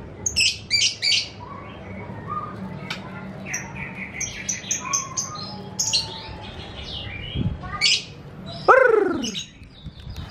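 White-rumped shama (Medan murai batu) singing freely in its cage soon after arriving from a long journey: a rapid run of varied high chirps, whistles and short trills, with a loud call that falls steeply in pitch near the end.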